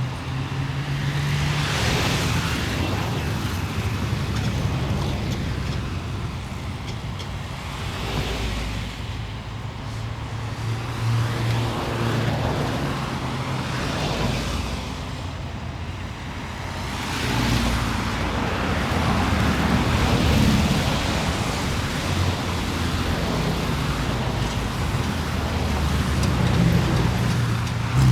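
City street traffic: a steady low hum of car and truck engines and tyres, with several vehicles swelling up and passing by in turn.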